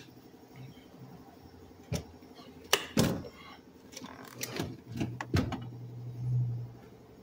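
Clicks and knocks of a car's seat and interior trim being handled, several sharp clicks coming close together in the middle. A low hum runs underneath and swells briefly about six seconds in.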